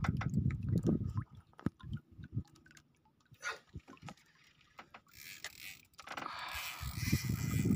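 Wind buffeting the microphone as a low rumble. It drops away about a second in, leaving a few seconds of scattered small clicks, and builds up again from about six seconds in.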